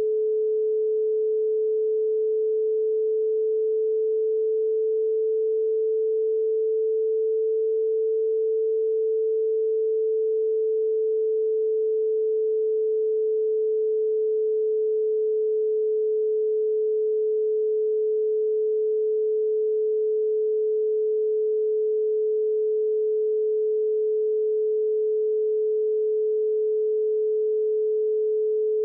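Pure sine tone from a software oscillator, held at about 430 Hz. Its pitch drifts very slightly, between about 431 and 435 Hz.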